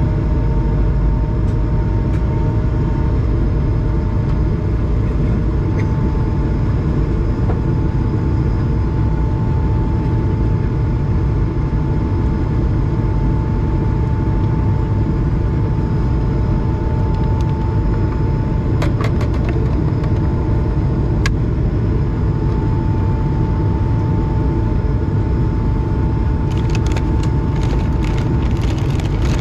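Steady jet-engine and airflow noise inside the cabin of an Airbus A220 climbing after takeoff, heard beside its Pratt & Whitney PW1500G geared turbofan: a deep, even noise with a steady high tone running through it. A few sharp clicks come about two-thirds of the way in, and a run of crackles near the end.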